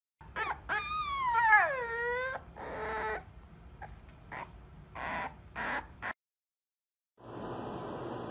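Puppy whining: one long cry that falls in pitch, then several shorter whimpers. It stops suddenly, and about seven seconds in a steady hiss begins.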